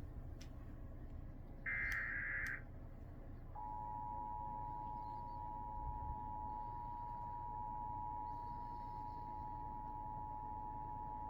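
Emergency Alert System signalling: a short burst of the warbling SAME digital data tones about two seconds in, then the steady two-tone EAS attention signal (853 and 960 Hz) from about three and a half seconds in, announcing a new alert.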